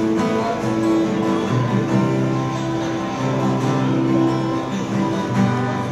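Acoustic guitar played live by a solo performer.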